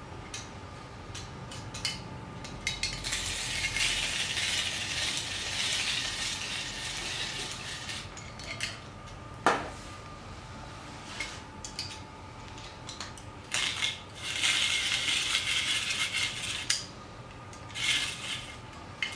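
ALISKID stainless steel rotary grater cranked by hand, its drum grating carrot with a steady rasp in two runs of several seconds. Between the runs come clicks and metal clatter from the grater's parts, with one sharp knock about halfway.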